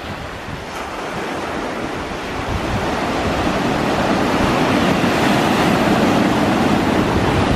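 Distant jet airliner on final approach: a steady rushing roar from its engines that swells louder as it nears, with wind buffeting the microphone.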